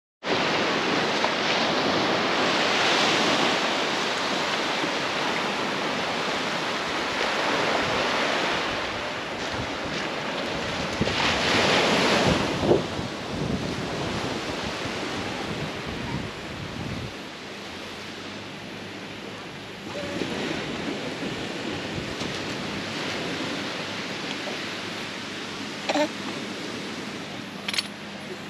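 Surf washing up on a sandy beach, with wind on the microphone; the wash swells louder about eleven seconds in.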